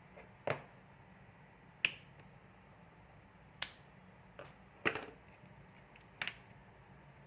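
A series of about six sharp clicks and taps, spread over several seconds, from working the wall power-point switch and handling the wires while a fan capacitor is charged from the mains. The loudest clicks come about two seconds in and near the middle.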